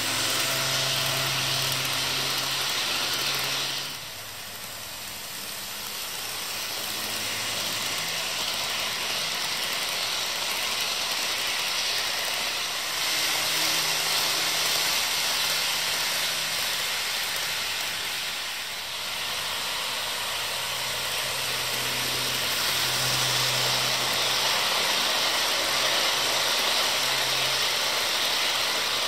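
HO scale model passenger train running along its track: a steady hiss with a low motor hum that comes and goes.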